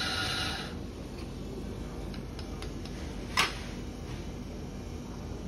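Café counter background: a low steady hum with a short hiss at the very start, and one sharp clack about three and a half seconds in.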